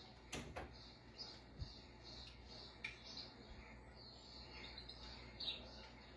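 Faint, high chirps repeating about three times a second, from a cat-entertainment video of a mouse playing on the TV. One sharp click comes about a third of a second in.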